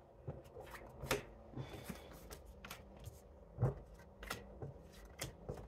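Tarot cards being shuffled and handled: irregular light taps and flicks of the cards, with firmer taps about a second in and again past halfway.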